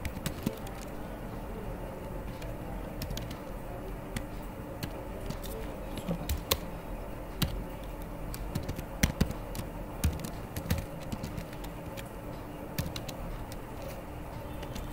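Computer keyboard typing: scattered, irregular key clicks over a faint steady hum.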